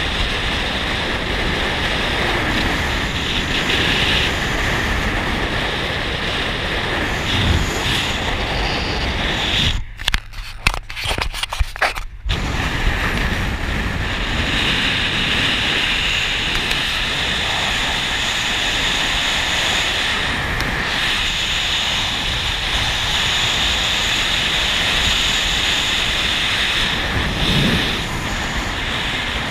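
Steady rush of wind on the microphone mixed with road and engine noise from a vehicle driving at speed on a paved highway. The sound cuts out in a few brief gaps about ten seconds in.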